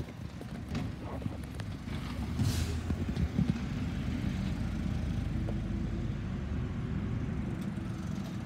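Garbage truck's diesel engine running steadily, with a short hiss of its air brakes about two and a half seconds in.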